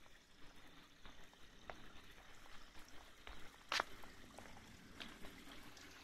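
Faint footsteps on concrete, scattered soft taps over a low hiss of outdoor air, with one sharper knock about four seconds in.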